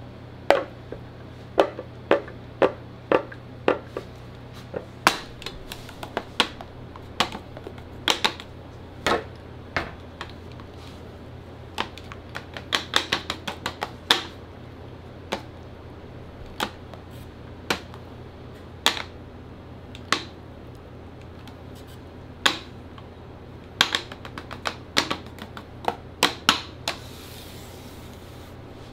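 Metal bench scraper and spatula clicking and tapping on a granite slab while melted chocolate is spread and scraped back together for tempering. Irregular sharp clicks, some in quick runs, over a steady low hum.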